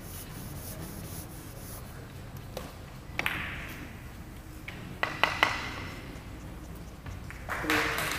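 A few sharp clicks that ring briefly in a large hall: a pair about three seconds in and a quick cluster of three or four about five seconds in, over a steady low room hum. Low voices rise near the end.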